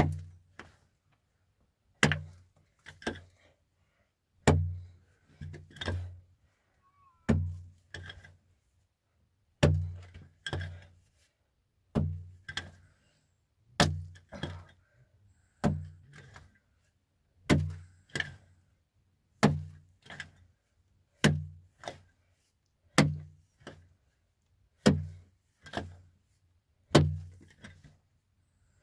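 A steady series of heavy, dull thuds like blows on something solid. They come in pairs, a loud blow followed by a softer one, about a pair every two seconds.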